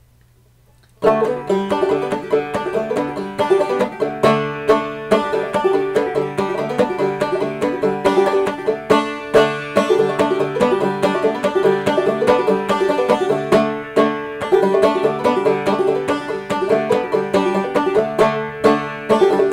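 Gold Tone banjo played clawhammer (frailing) style: a solo instrumental tune of quick plucked notes and brushed strums, starting about a second in after a faint hum.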